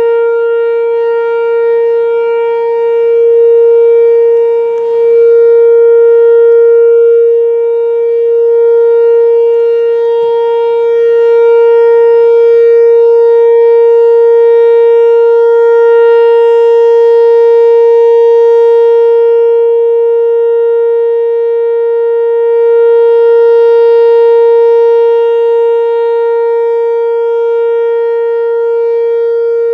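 A loud, steady tone held at one unchanging pitch, rich in overtones, swelling and easing slightly in level.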